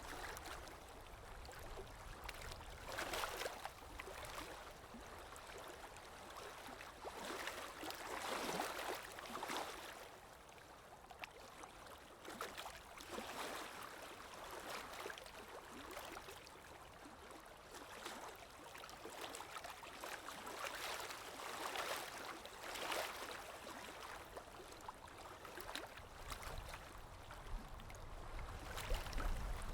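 Gentle water lapping with soft swells every few seconds, and a low wind rumble building near the end.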